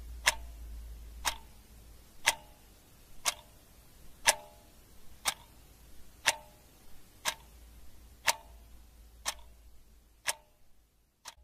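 Three antique pendulum wall clocks, a Syn Sin, a cuckoo clock and a 1927 Mauthe, ticking together: a sharp, ringing tick about once a second with fainter ticks in between. The sound cuts off just before the end.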